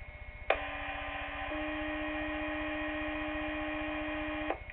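Two-tone sequential fire-paging tones coming over the dispatch channel through a Minitor II pager's speaker: one buzzy tone starts, a second slightly higher tone joins it about a second later, and both hold steady for about three seconds before cutting off cleanly. This is a dispatcher's tone-out that sets off a fire company's pagers during the monthly pager test.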